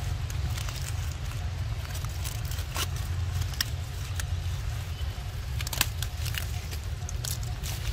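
Steady low rumble of wind on the microphone, with scattered sharp crackles and clicks of dry leaves and twigs as macaques forage in the leaf litter; one sharper snap about six seconds in.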